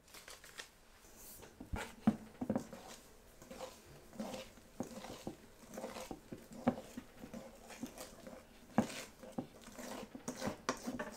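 Hand whisk beating thick madeleine batter in a mixing bowl, giving irregular wet slaps and knocks against the bowl, about two a second.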